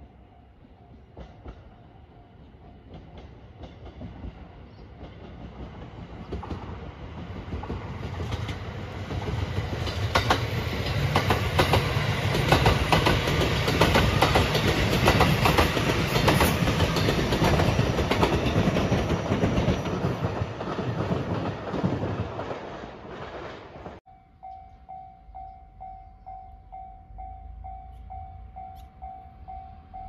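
A Rapid Marine Liner electric train approaches and passes close by. Its running noise builds over several seconds, with wheels clacking over rail joints loudest in the middle, then fades away. After a sudden cut about three quarters of the way through, a level crossing bell dings in a rapid, steady rhythm.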